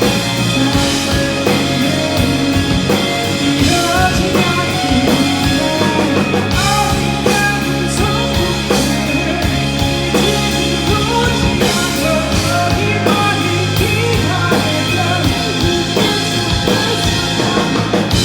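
A live rock band plays an instrumental stretch of a song: a drum kit and bass keep a steady beat under melodic lead lines.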